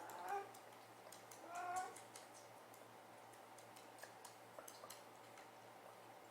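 Kitten mewing: two short, high-pitched mews about a second and a half apart, then only faint scattered clicks.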